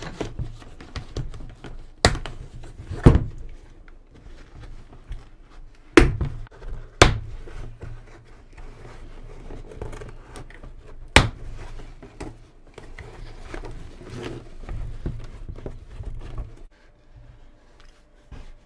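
Handling noise from pulling the inner padding out of a motorcycle helmet: rustling and crinkling, with sharp clicks or knocks about two, three, six, seven and eleven seconds in.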